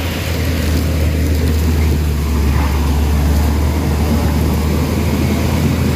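Diesel engine of a JCB crawler excavator running with a steady low drone as the machine tracks across a ditch.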